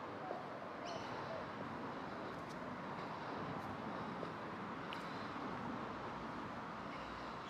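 Outdoor street ambience: a steady hum of distant traffic with a few faint bird chirps.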